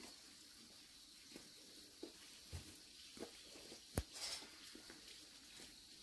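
Quiet outdoor ambience: a faint steady high hiss with a few soft ticks, and one short sharp click about four seconds in.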